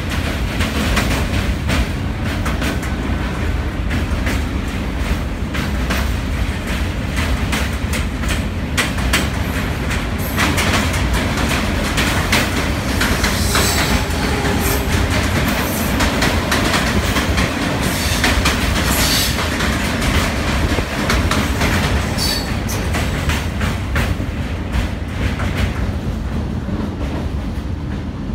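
Indian Railways EMU commuter train running at speed, heard from its open door: a steady low rumble with the wheels clattering over the rails, and short high squeals from the wheels a few times midway.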